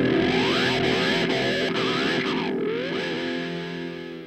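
Background music led by distorted guitar with effects and sliding notes, ending on a held chord that fades out near the end.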